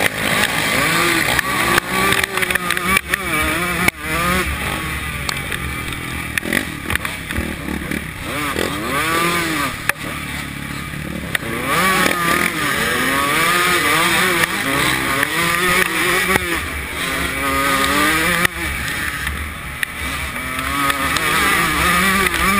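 125 cc two-stroke motocross bike engine revving hard and repeatedly rising and falling in pitch through the gears and turns while racing on a dirt track, with bumps and knocks from the track.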